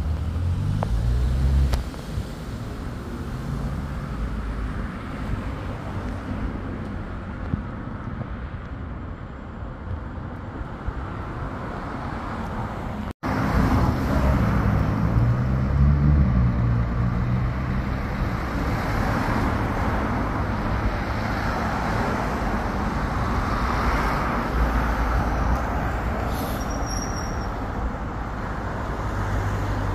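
Street ambience of road traffic: a steady rumble and hiss of cars on the road, with a vehicle passing more loudly about 14 to 17 seconds in. The sound drops out for an instant about 13 seconds in.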